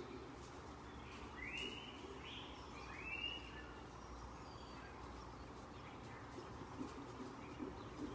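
A small bird gives a few short rising chirps, a second and a half to three and a half seconds in, over a faint steady low hum.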